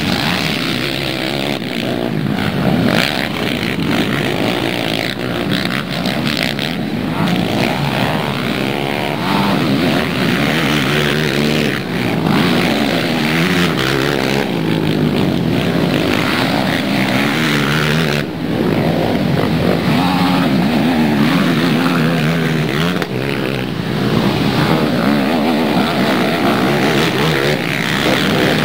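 Several racing quad bikes' engines running hard together, revving up and down so the overlapping engine notes keep rising and falling in pitch.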